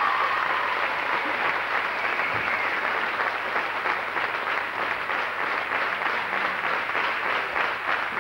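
Applause from the team and crowd in a sports hall, a dense spread of many hands clapping, with single claps standing out more in the second half.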